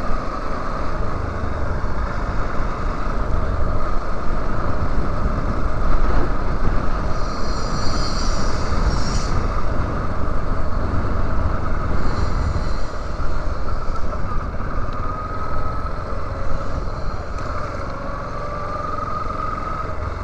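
Yamaha Lander 250 single-cylinder motorcycle engine running at cruising speed, heard from a helmet-mounted camera with heavy wind and road noise over it.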